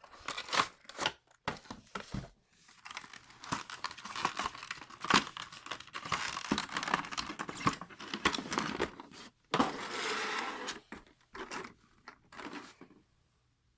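Packaging of a diecast model plane being opened and unwrapped: irregular crinkling and tearing of plastic wrapping with small clicks and rustles, a longer rustle about ten seconds in.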